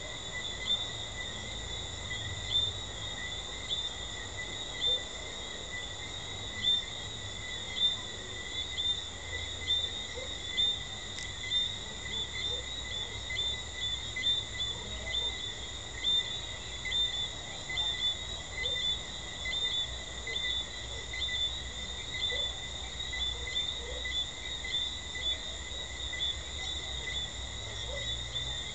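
Caribbean treefrogs calling at night: many short, high chirps repeated again and again, more often as it goes on, over a steady high insect trill.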